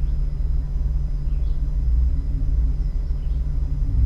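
Jeep engine running steadily at low revs, an even low-pitched drone with no revving.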